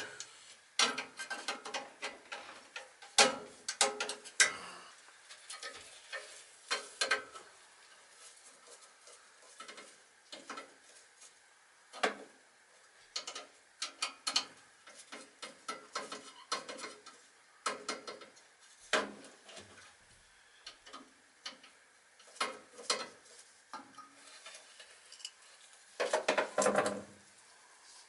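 Scattered clicks, knocks and light metallic clatter of gloved hands and tools working inside a gas furnace cabinet, with a denser burst of clatter near the end.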